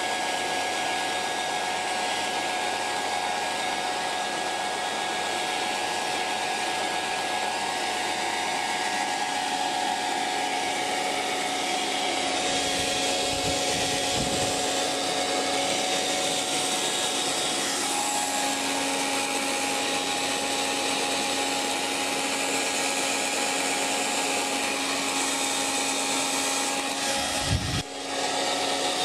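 Hair dryer running steadily: a rushing blow with a constant motor whine. About two-thirds of the way through, the whine shifts slightly higher, and near the end there is a brief low thump with a momentary drop in level.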